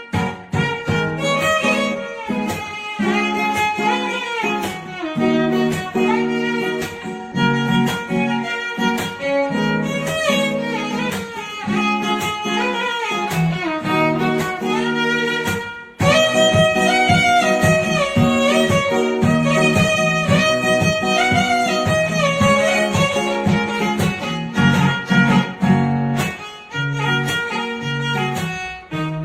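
Background music: a string melody, violin-like, over a plucked guitar accompaniment, with a brief break about halfway through before it starts again.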